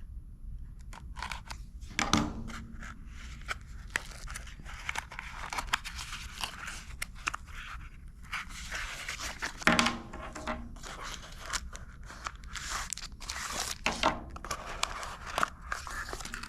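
Small product package being opened and its contents handled: irregular crinkling, tearing and scraping with scattered clicks and taps, and a couple of louder knocks about two and ten seconds in.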